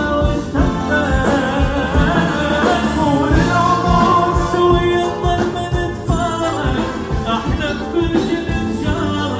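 Band music with a steady drum beat, bass and a wavering lead melody.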